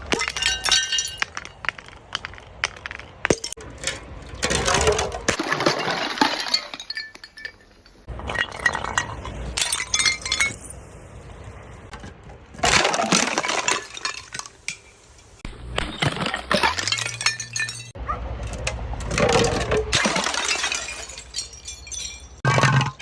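Glass bottles being crushed and broken in repeated crunching bouts with short pauses between them, the shards clinking and ringing.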